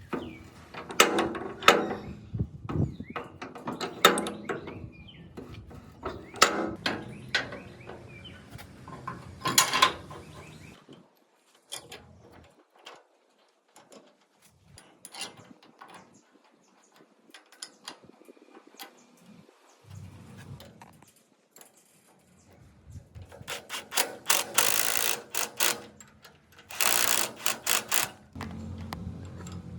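Metal machine parts being handled and turned: irregular clicks and knocks, a quieter stretch in the middle, then a few seconds of harsh rapid scraping about three-quarters of the way through.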